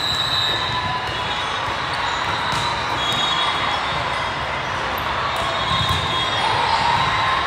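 Steady din of a convention hall full of volleyball courts: scattered hits and bounces of volleyballs over a background murmur of crowd, echoing in the big hall.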